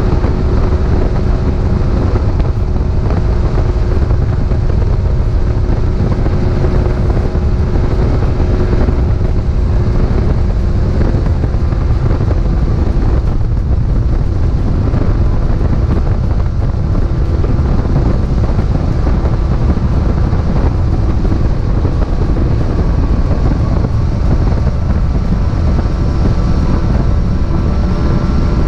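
Fishing boat's outboard motor running steadily while the boat travels across the lake, a constant engine drone mixed with rushing wind and water noise.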